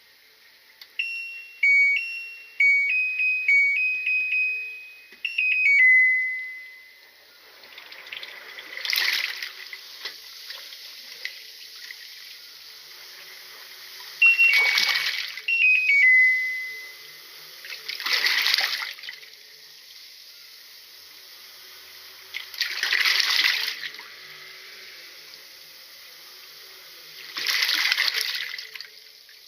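Washing machine control panel beeping a short tune, ending in a long beep, then water rushing into the drum in surges every four to five seconds over a steady hiss. A second run of beeps comes partway through.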